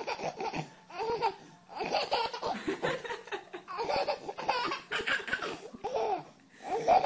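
A baby laughing in several bouts with short pauses between them.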